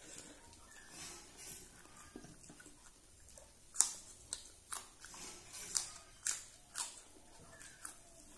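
Close-up eating sounds: soft chewing of a mouthful of rice and fried fish, then, about halfway in, a run of sharp crunches roughly every half second as a raw green chilli is bitten and chewed, the first crunch the loudest.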